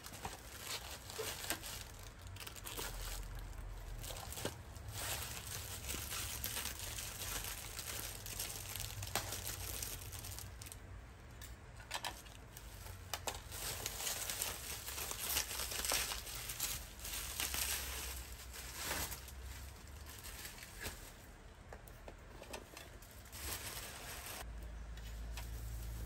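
Plastic wrap and bubble wrap crinkling and rustling as hands unwrap parcels by hand, with irregular crackles throughout.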